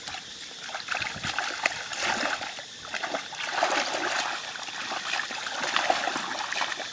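Hands sloshing and groping through shallow muddy water, making a run of small splashes and trickles that rise and fall.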